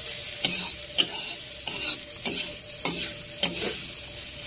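Metal spatula scraping and turning fried tiwul in a wok, about two strokes a second, over a steady sizzle from the hot pan.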